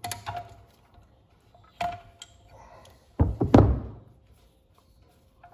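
Steel hand tools clinking as a pulley installer is backed off a power steering pump, with a short metallic ring, then a heavy wrench clunking twice onto a wooden workbench about three seconds in, the loudest sound.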